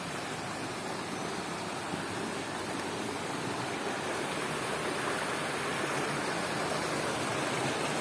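Shallow mountain stream running over rocks: a steady rush of water that grows gradually louder toward the end as a small cascade between boulders comes close.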